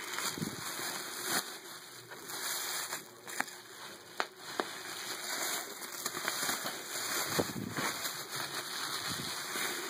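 Packing paper and cardboard rustling and crackling as a box is unpacked, with a few sharp clicks and snaps around the middle.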